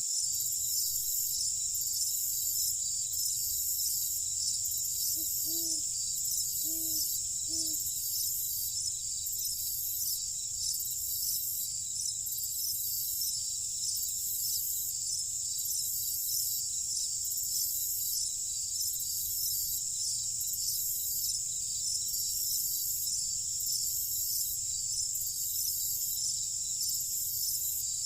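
Night insect chorus of crickets: a steady, high-pitched shrill with a slow regular pulse. Between about five and eight seconds in, three short low calls from another animal sound over it.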